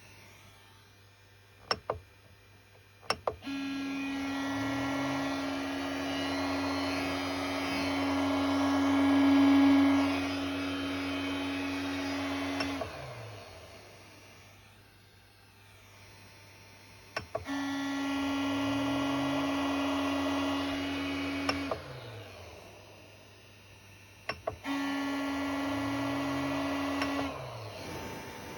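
Creality Ender 3 V2 3D printer making a loud humming drone from its base in three separate runs, the first about nine seconds long, then about four and about two and a half seconds. Each run starts after a couple of sharp clicks, and its pitch sweeps up at the start and back down at the end. This loud noise from the base is the fault being shown.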